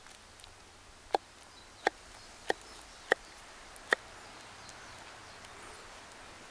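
Five sharp knocks, about two-thirds of a second apart, over a faint steady hiss.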